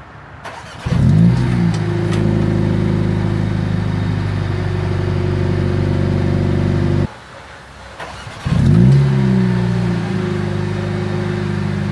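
Mercedes-AMG CLA45 S's 2.0-litre turbocharged four-cylinder, heard at its quad exhaust tips, cold-started in Race mode: it catches about a second in with a brief flare of revs, then settles to a steady idle. About seven seconds in it shuts off abruptly, and a second and a half later it is started again in Comfort mode, flaring and settling back to idle.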